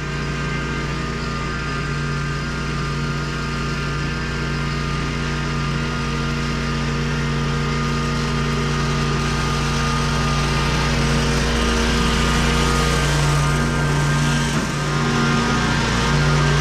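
A gas engine running steadily, with its note wavering briefly about two-thirds of the way through.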